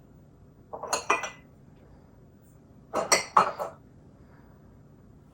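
Breakable drinking cups clinking and clattering against one another as they are handled and set down, in two short bursts: about one second in and about three seconds in.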